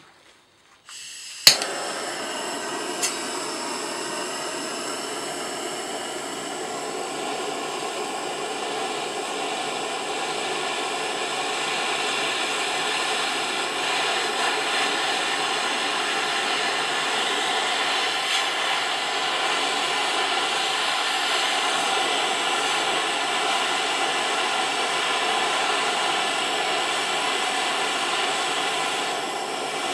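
Handheld gas blowtorch lit with a sharp click about a second and a half in, then burning with a steady flame noise that grows slightly louder. It is heating a brazing rod and key parts.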